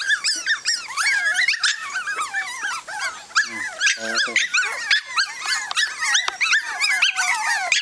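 A litter of Cavalon puppies (Cavalier King Charles spaniel × papillon cross) whining and yipping all at once, a dense, unbroken chorus of high-pitched squeals. They are excited by a person arriving at their pen.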